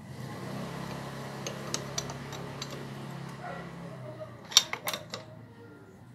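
Light metallic clicks of a wrench on the crankshaft nut of a Honda XRM125 engine, turned by hand toward top dead center, with a cluster of sharper clicks about four and a half seconds in. A steady low hum runs underneath and stops about four seconds in.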